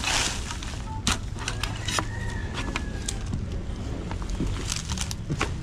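Scattered sharp knocks and clicks over a steady low rumble, with a brief faint high whistle about two seconds in.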